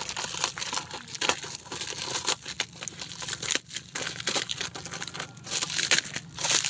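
Plastic film wrapped around a new motorcycle tyre crinkling and crackling irregularly as a hand pulls and peels at it.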